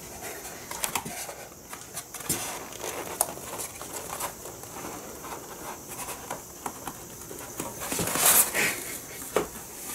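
A cat rummaging with its head inside a cardboard box: scattered clicks, scratches and scrapes of cardboard, with a louder rustle about eight seconds in.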